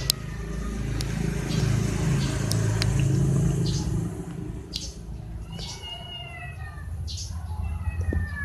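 A cat meowing twice, two drawn-out calls that slide down in pitch, the first about two-thirds of the way in and the second near the end, over a steady low rumble.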